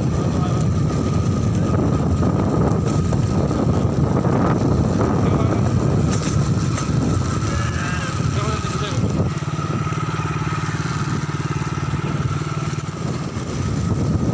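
Motorcycle engine running steadily while riding along, with a steady whine above the engine note.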